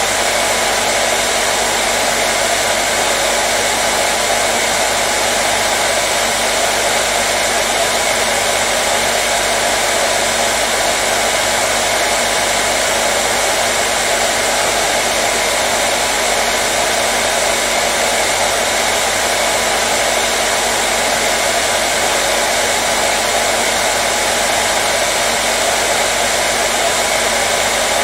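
Hair dryer running steadily: a constant, even whoosh of blown air with a faint motor hum, unchanging throughout.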